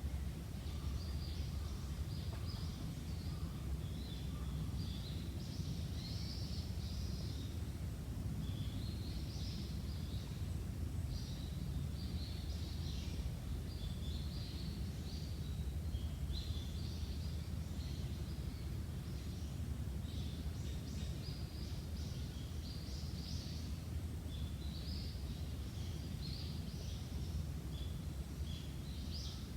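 Small birds chirping and calling over and over, quick high-pitched notes throughout, over a steady low rumble of outdoor background noise.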